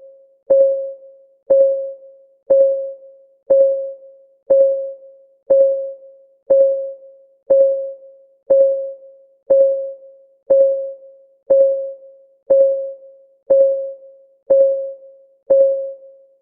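Countdown timer's clock-ticking sound: one short tick every second, each a sharp click with a single ringing tone that fades quickly.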